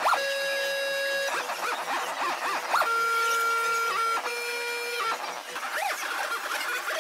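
Electronic sound generated by an interactive media installation: held synthetic tones lasting one to two seconds each, with short warbling pitch glides in the gaps between them.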